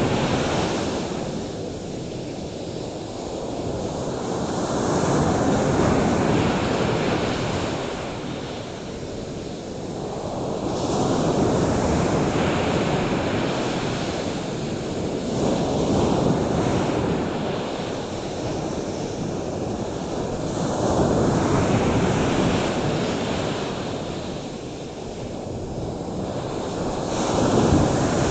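Ocean waves breaking on the shore in a slow rhythm, the wash swelling and fading about every five to six seconds.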